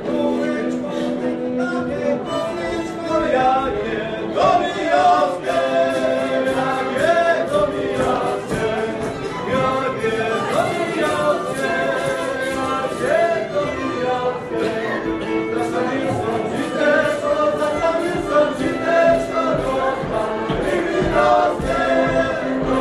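A choir singing together in several voices, with no clear instrumental beat.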